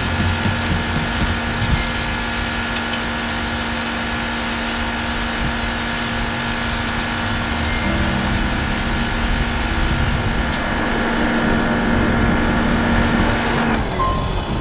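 Pressure washer running, with its motor whining steadily and the jet hissing onto a concrete walkway; it cuts off abruptly near the end as the spraying stops.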